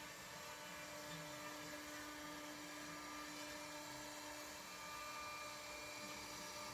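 MechMate CNC router's spindle running with a steady whine and hiss.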